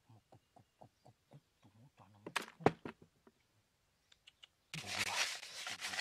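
Light taps and two sharp clicks from hand work on a cardboard trap. Then, about three-quarters of the way in, a plastic bottle of bird seed starts to rustle and rattle as it is handled, louder than anything before it.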